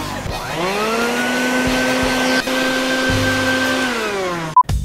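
Wet/dry shop vacuum motor switched on, its whine rising to a steady pitch within about a second, then winding down near the end. It is blowing air to spin a paper turbine. A short loud beep comes just before the end.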